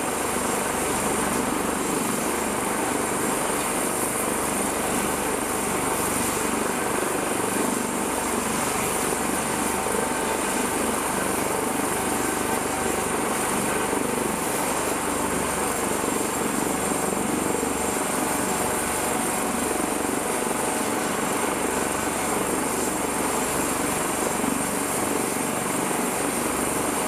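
Helicopter running on a ship's flight deck, its rotor and turbine making a steady, unbroken noise with a constant high whine over it.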